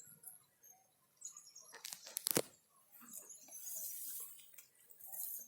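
Beetal goats feeding on napier grass: rustling of leaves and snapping of stalks as they tear at it, with a sharp crack a little over two seconds in.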